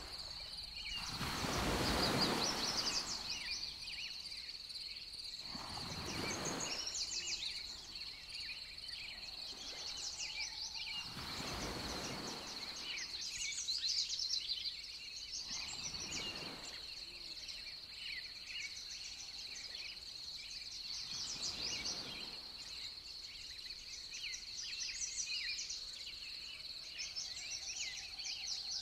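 Outdoor nature ambience: a steady high insect drone with birds chirping. Five times, a rushing noise swells and fades; the first, about two seconds in, is the loudest.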